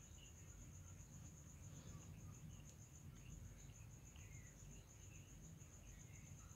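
Near silence with a faint, steady, high-pitched insect trill that pulses evenly throughout, over a low background hum.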